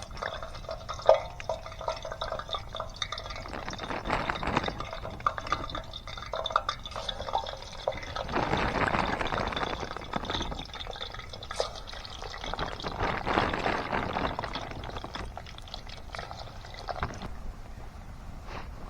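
Grocery-store french fries frying in hot oil, a steady sizzle and crackle that swells louder three times.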